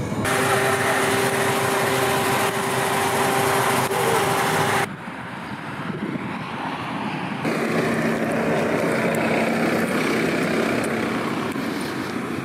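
Road and engine noise inside a moving Volvo estate car, a steady drone with a humming tone. It cuts off about five seconds in to quieter open-air vehicle noise, and a lower, steady engine hum sets in a couple of seconds later.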